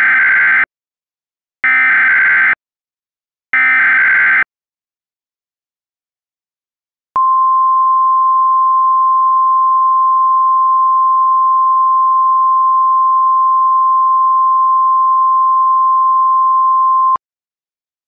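Emergency Alert System alert opening: three one-second bursts of the digital SAME header, a pause of a few seconds, then the single steady attention tone held for about ten seconds before cutting off.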